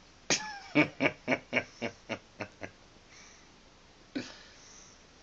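A newborn baby's hiccup with a short falling squeak, followed by a person laughing, about nine short laughs at about four a second, fading out. Another single baby hiccup comes just after four seconds.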